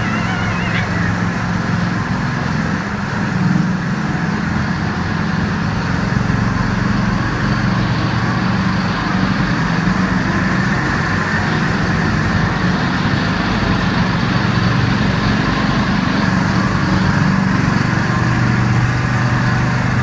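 Amphibious car's engine running steadily under way, heard from on board.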